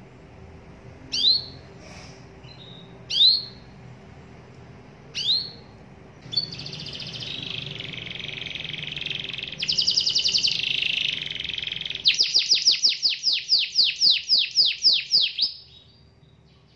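Domestic canary singing: three single falling 'cuit' chirps about two seconds apart, then a continuous rolling trill from about six seconds in, quickening near ten seconds, and ending in a loud run of falling whistled notes about four a second that stops shortly before the end.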